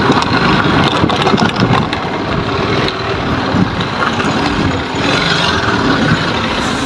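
Continuous rumble and rattle of a two-wheeler ridden over a rough gravel track, with wind rushing over the phone microphone.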